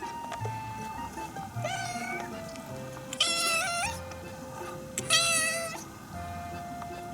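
Minuet kitten meowing three times, short high calls under a second each, the second and third louder than the first, over background music.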